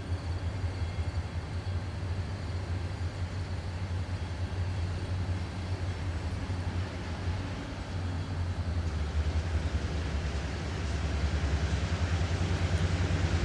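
Diesel freight locomotives approaching: a steady low engine drone that grows louder, with a rushing noise building over the last few seconds as they near.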